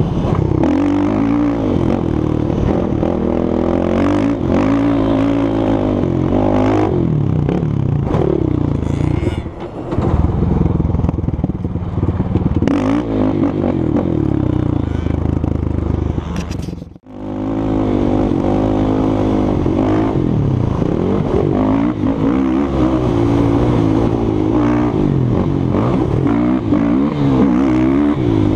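Suzuki LTR450 quad's single-cylinder four-stroke engine revving up and down repeatedly under hard throttle while riding a dirt track. The sound briefly drops out about two-thirds through.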